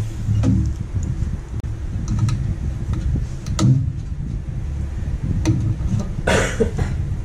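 Light clicks and knocks of hardware and cables being handled inside an open desktop PC case, with a louder rustling scrape about six seconds in, over a steady low rumble.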